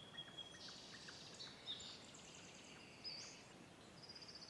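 Faint birdsong: scattered high chirps and a short rapid trill about four seconds in, over near-silent room tone.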